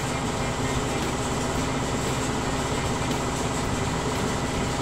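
Belt-driven electric air compressor running steadily with a constant mechanical hum, its pump building tank pressure.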